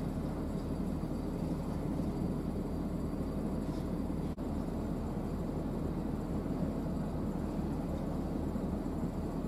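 Steady low rumble of a passing coastal container ship's diesel engine heard across calm water, with a momentary dropout a little over four seconds in.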